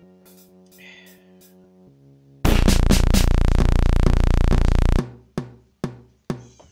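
Film soundtrack music: a soft held chord, then a sudden loud burst about two and a half seconds in that stops abruptly near the five-second mark, followed by a steady drum beat of about two hits a second.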